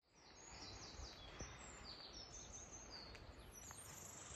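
Faint birdsong: many short high chirps and whistles following one another, over a soft even background hiss.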